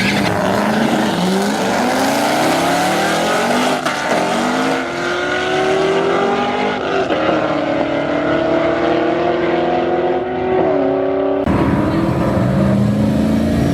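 Drag car engine at full throttle, its pitch climbing steadily and dropping sharply at each upshift, about every three seconds. Near the end it cuts abruptly to another high-revving engine with a deeper sound.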